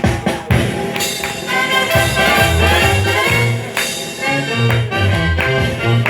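Brass band music: drum strokes open it, then horns play sustained notes over a pulsing bass line.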